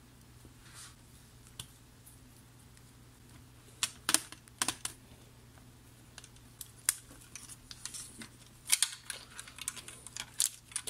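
Sporadic light clicks and taps of a screwdriver and fingers working a cassette tape transport free of its plastic chassis, with metal and plastic parts knocking together and a denser run of clicks near the end.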